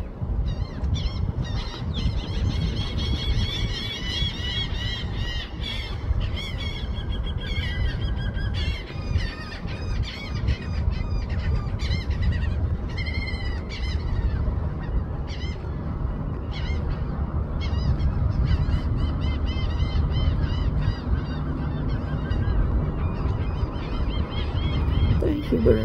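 Osprey calling in long runs of rapid, high, whistled chirps, with short pauses between runs, over a steady low rumble.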